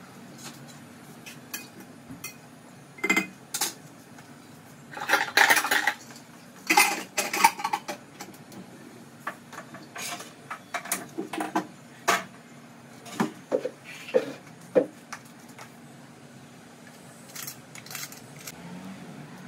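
Pots, pans and metal utensils clinking and clattering at a stove during cooking, in irregular knocks and scrapes. The clatter is loudest about five to eight seconds in, then thins out to a few faint clinks near the end.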